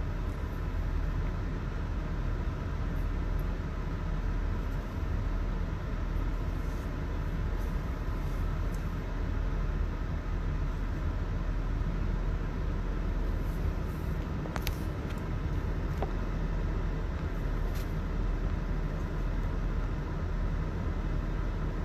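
Steady low rumble of a vehicle, heard from inside its cabin, with two faint clicks in the second half.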